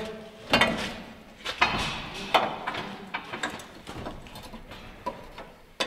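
Metal clanking and knocking as a KAMAZ truck engine is levered and worked into place: a few sharp strikes in the first two and a half seconds, then lighter irregular knocks.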